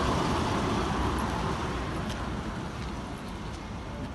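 A road vehicle passing, its noise fading steadily away.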